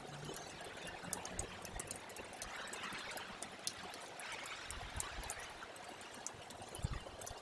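Snowmelt water trickling and dripping: a faint steady rush with many small ticks scattered through it.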